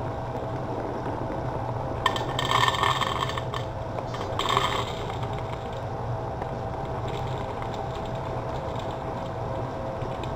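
Foil hop bag crinkling and rustling in two short bursts, about two and four seconds in, over a steady low hum.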